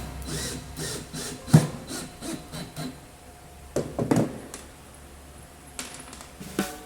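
Plywood pieces being handled and rubbed together, with scattered wooden knocks and scrapes; the loudest knocks come about a second and a half and four seconds in.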